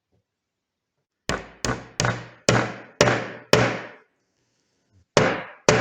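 Hammering: six sharp strikes in quick succession about half a second apart, then a pause and two more strikes near the end.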